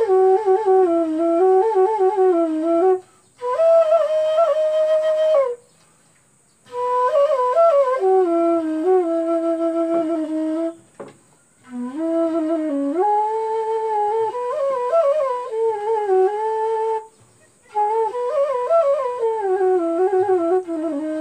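Bamboo seruling flute playing a slow melody of long held, ornamented notes. It is played in phrases broken by four short pauses for breath.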